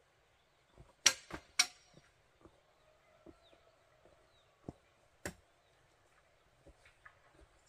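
Sharp knocks of a metal tool striking wooden poles, with a bright ring on the loudest. There are three close together about a second in, then two single knocks around five seconds in.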